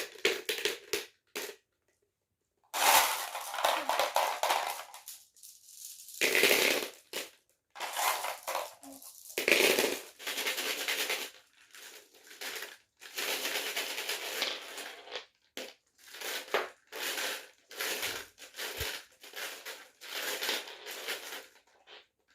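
Marbles rolling and clattering down a HABA wooden marble run. Stretches of rolling rumble with sharp clicks come again and again, broken by short silent gaps.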